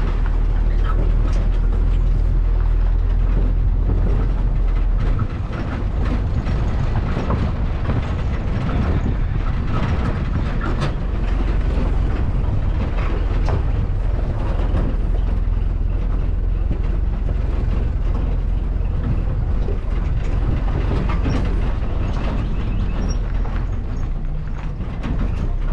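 A moving vehicle's steady low rumble, with constant rattling and clicking over it; the deepest part of the rumble eases slightly about five seconds in.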